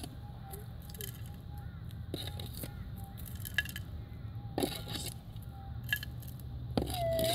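Minelab GPX 5000 gold detector with a Detech 14-inch coil holding a faint steady threshold tone while dirt and gravel are scraped and tipped in a plastic scoop, with scattered clicks. Near the end the detector gives a rising signal tone as the scoop passes over the coil: the nugget is in the scoop.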